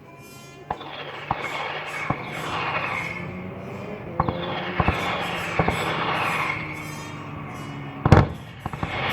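Fireworks display starting: scattered sharp pops of shells going off, with a swelling hiss, and one loud bang near the end, over music.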